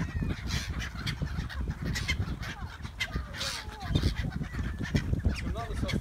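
A flock of gulls calling over and over with short, harsh, overlapping cries while they swarm for food, over a steady low rumble of wind on the microphone.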